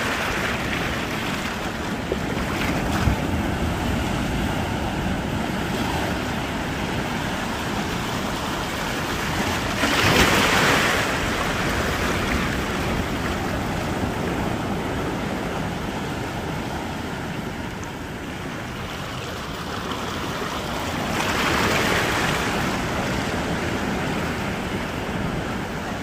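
Ocean surf breaking and washing in over a shallow beach, a steady rushing wash with two louder surges as waves break, one near the middle and one toward the end.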